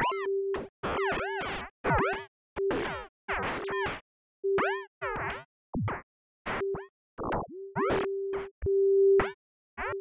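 Vector FM synthesizer notes triggered by balls bouncing in the Bouncy Notes MIDI sequencer. Short electronic tones come in an irregular rhythm, many gliding up and back down in pitch, with a steady mid-pitched note recurring between them.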